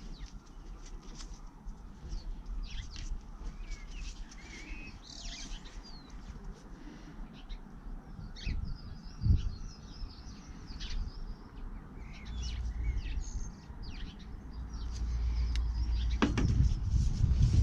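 Small birds chirping over a low outdoor rumble, with one thump about nine seconds in and louder knocking and handling noise near the end.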